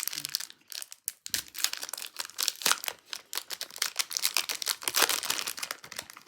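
Plastic wrapper of a trading card pack being torn open and crinkled by hand, a dense crackling that is busiest in the middle.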